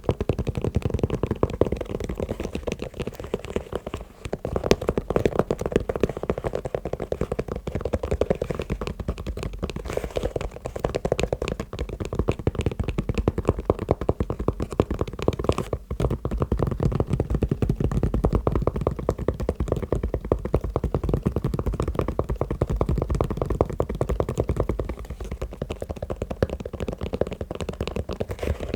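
Fast tapping on shoes: a dense, unbroken stream of quick, dull taps.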